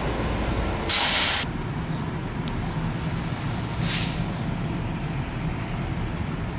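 Fire truck's air brakes hissing loudly for about half a second, about a second in, then a shorter, softer hiss about four seconds in, over the low steady running of the truck's engine.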